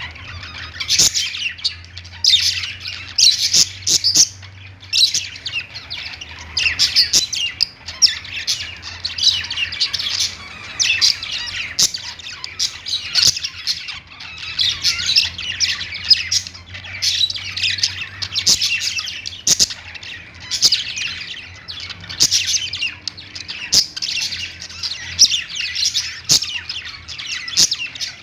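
Budgerigars chattering and warbling without pause, with many sharp chirps and squawks mixed in.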